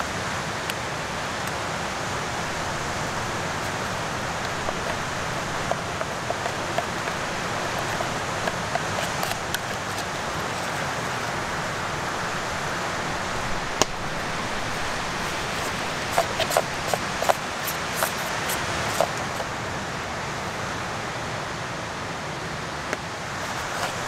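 A metal spoon scraping and clicking against a camping pot and plastic packaging crinkling as cottage cheese and flour are mixed for cheesecakes. Sharp clicks come mostly in the second half, over a steady rushing background noise.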